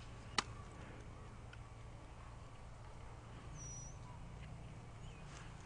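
A single sharp crack about half a second in, an airsoft gun firing one shot, over a faint steady low rumble. A brief high chirp comes near the middle.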